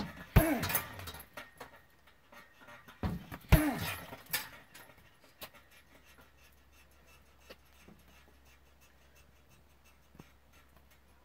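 Two hard kicks landing on a hanging heavy punching bag about three seconds apart, each a sharp thud followed by a short sound falling in pitch.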